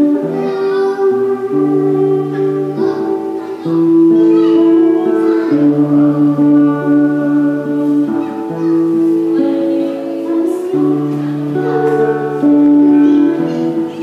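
A woman singing a song in long held notes, accompanied by an acoustic guitar.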